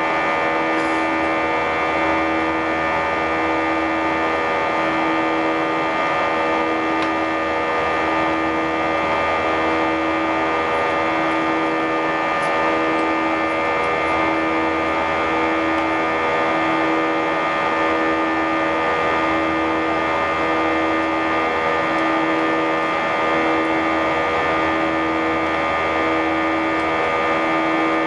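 Airbus A320 cabin noise in flight, heard from inside the cabin: the jet engines and airflow making a steady drone with several steady tones. One low tone swells and fades about every second and a half.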